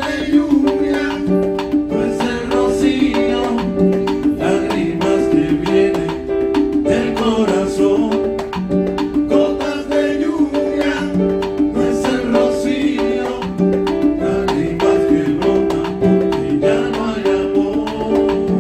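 Live band playing a salsa-style Latin song, with piano and hand drums.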